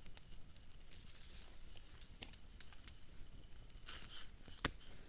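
Light crinkling and rustling of a small homemade coffee pouch being handled, with scattered small clicks, a short rustle about four seconds in and one sharp click right after.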